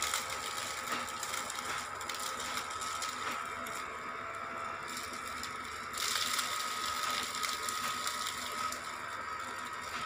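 Small 9-volt DC motor spinning a plastic fan inside a homemade plastic-bottle vacuum cleaner, running with a steady high whine over a buzzing rattle. About six seconds in it grows louder and rattlier.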